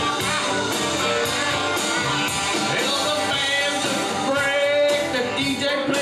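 Karaoke: a backing track played loud over a bar's sound system, with a man singing into a microphone over it.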